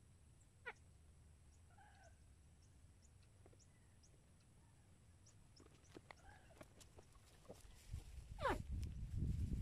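A few faint animal cries, each falling in pitch; the loudest comes near the end. A low rumble builds under them in the last couple of seconds.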